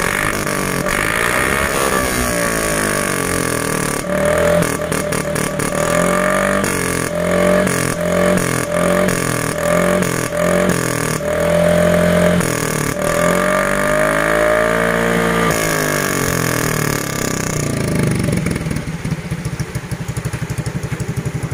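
Yamaha Mio M3 scooter's single-cylinder engine running through a freshly rebuilt (bobokan) aftermarket muffler made for the 'MP7 listrik' exhaust note, revved by hand. It is a string of quick throttle blips and one longer rise and fall, then it settles to an even, pulsing idle near the end.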